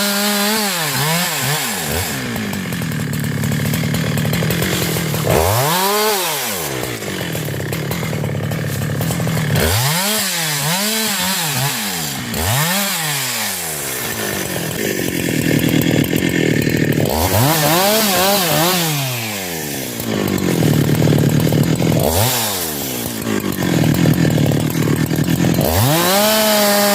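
Husqvarna 372 two-stroke chainsaw revving up and dropping back again and again, its engine pitch rising and falling several times.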